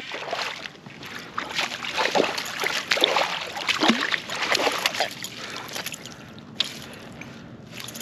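Irregular splashing and sloshing of water at the side of an inflatable kayak as a hooked pike is brought in.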